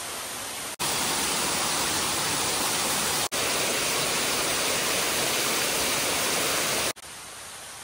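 Waterfall rushing, a steady wash of falling-water noise. It is broken by sudden cuts about a second in, around the middle and near the end, and is quieter after the last cut.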